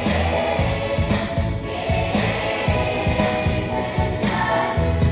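Children's choir singing, with a steady low beat repeating about twice a second underneath.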